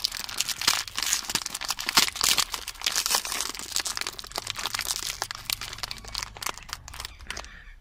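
Plastic biscuit wrapper crinkling and crackling in the hands as the open packet is worked and the stack of biscuits is pulled out, busiest in the first few seconds and thinning toward the end.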